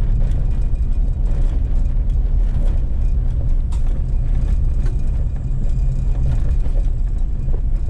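Inside a pickup truck's cab driving a rough gravel road: a steady low rumble of engine and tyres, with scattered knocks and rattles from the bumps.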